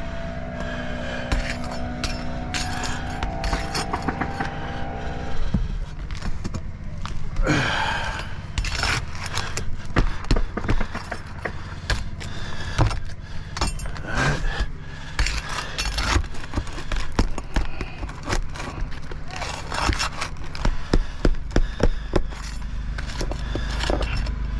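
Repeated scraping, clicking and tapping of a hand tool working under an asphalt roof shingle to lift it and reach its nail, over a steady low hum.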